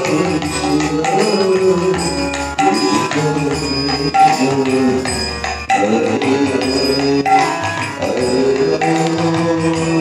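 Kirtan devotional music: a melody sung or played in repeated phrases over a drum and jingling percussion.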